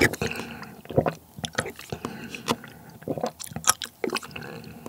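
Close-miked slurping of cold naengmyeon broth from a wooden spoon: repeated short, wet sips and mouth sounds.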